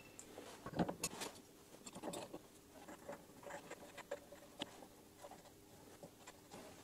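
Faint, scattered clicks and light metal taps as a screw clamp and a brass protective piece are fitted down onto a lathe's quick-change tool holder.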